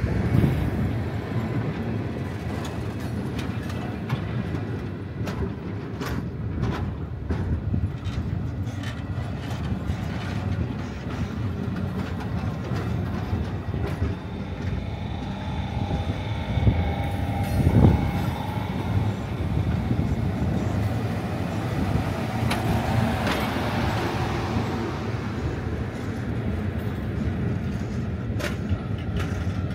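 The Ghan's stainless-steel passenger carriages rolling past as the train departs: a steady low rumble of wheels on the rails with scattered sharp clicks, swelling loudest about eighteen seconds in.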